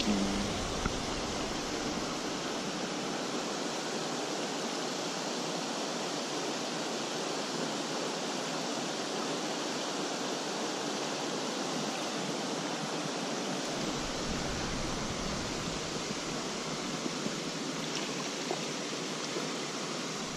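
Steady rush of a shallow mountain stream running over rocks and small cascades.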